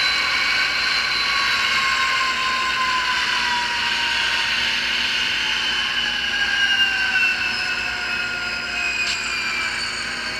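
Diesel engine sound from an HO-scale DCC sound locomotive's speaker, winding down with its pitch slowly falling. It is the decoder's shutdown sequence, set off by lowering the DC track voltage.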